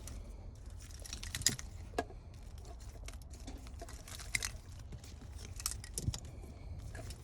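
Handling noise from a car alarm wiring harness and its plastic connectors: scattered light clicks, taps and rustles, with a sharper click about a second and a half in.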